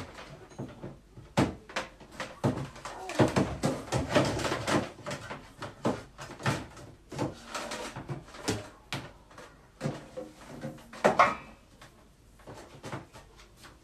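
Irregular plastic knocks, clacks and rustling as a cable management box and its cables and plugs are handled, with one louder knock about eleven seconds in.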